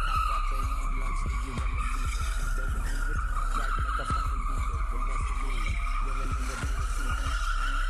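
Car tyres squealing in one long, slightly wavering screech as a car spins donuts with its drive wheels spinning and smoking.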